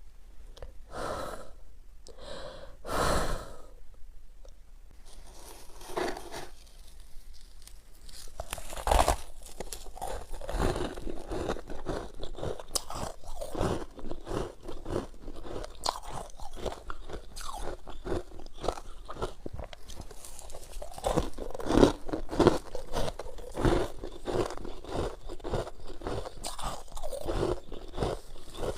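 Close-up biting and chewing of squeaky freezer frost. A few separate crunchy bites come in the first seconds, then dense, steady crunching as the frost is chewed.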